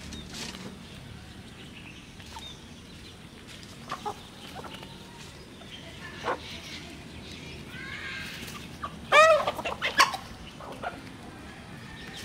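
A flock of chickens feeding, with scattered soft clucks and short pecking taps. About three quarters of the way through, one bird gives a loud squawking call of a few quick notes, with another call a second later.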